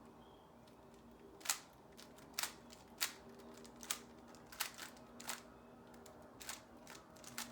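Plastic Rubik's Cube being turned quickly: a string of sharp clicks, irregularly spaced, about one every half second to a second, starting about a second and a half in. A faint steady hum sits under them.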